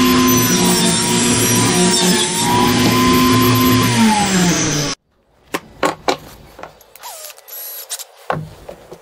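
Table saw running as a wooden board is fed through the blade, a steady whine whose pitch sags briefly near the end of the cut. About five seconds in the sound cuts off suddenly, followed by a few light wooden knocks as boards are handled.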